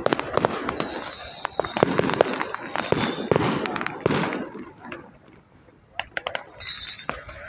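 A string of firecrackers going off in rapid crackling bursts, dying away about four and a half seconds in, followed by a few scattered pops.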